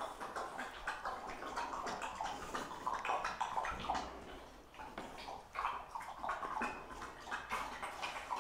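Dog lapping water from a bowl, a quick run of wet splashy laps, with dog claws clicking on the concrete floor.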